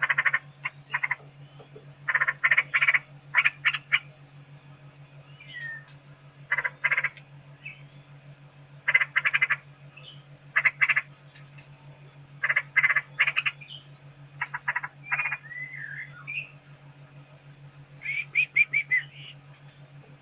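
Straw-headed bulbul (barau-barau) calling: short loud bursts of rapid notes repeated every second or two, with a few gliding whistled notes between them. A steady low hum sits underneath.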